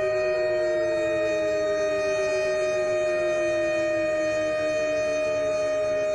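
Outdoor warning sirens, a Thunderbeam and an SD-10, sounding together. One holds a steady pitch while the other slowly winds down, its pitch falling throughout.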